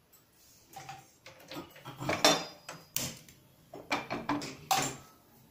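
Kitchen clatter: a run of about eight sharp knocks and clinks of dishes and utensils being handled, one near the middle with a short metallic ring.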